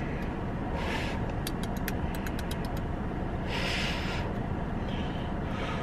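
Steady low hum inside a car cabin, with a quick run of faint clicks about a second and a half in and a couple of soft rustling hisses.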